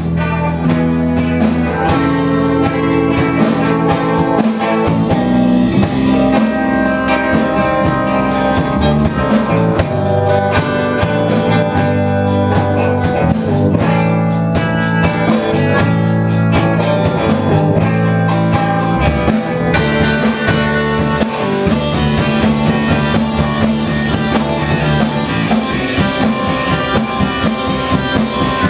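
A rock band playing a song live, with drum kit and electric guitar, at a steady loud level.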